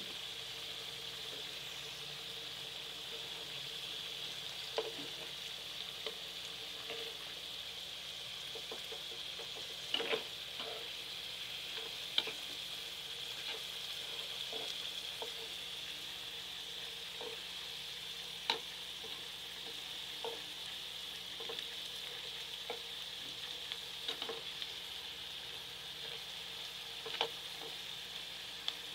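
Flour-coated sandwich crackers frying in hot oil in a pan: a steady sizzle with a few sharp pops scattered through it.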